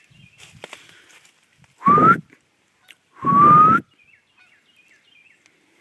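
Two loud, breathy whistles close to the microphone, each rising in pitch and lasting about half a second, the second a little longer.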